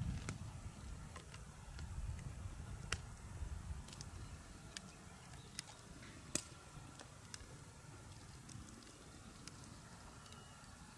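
Quiet outdoor ambience: a low rumble that fades over the first few seconds, then a faint steady hush broken by scattered sharp clicks, the loudest a little past halfway.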